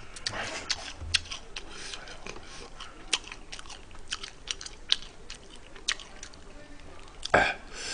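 Close-miked chewing of crispy fried chicken: irregular short crunches and wet mouth clicks. A single louder, short noise comes near the end.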